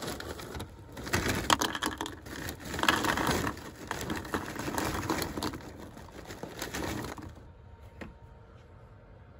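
Dry cereal poured from a plastic bag into a bowl: crinkling of the bag and a rattle of pieces landing, stopping about seven seconds in. A single sharp knock about eight seconds in.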